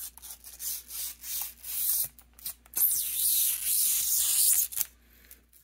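Clear protective plastic film being peeled off a new computer keyboard. First come several short, rasping rips, then one long continuous peel lasting about two seconds, which stops shortly before the end.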